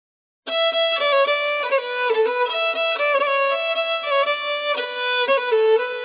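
Background music: a solo fiddle playing a quick melody of short notes, starting about half a second in.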